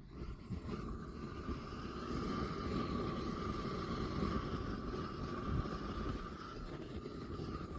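Propane weed burner torch running with a steady roar, with a whistling tone that joins about a second in, as it heats a steel knife blank in a stack of bricks to normalize it.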